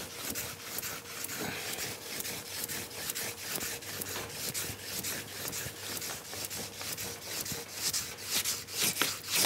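A fine sharpening stone held in an 87-degree side-edge file guide, stroked quickly back and forth in a steady rhythm along the steel side edge of a ski, rubbing and scraping. The strokes are the polishing stage after filing, meant to harden and shine up the edge; they grow a little stronger near the end.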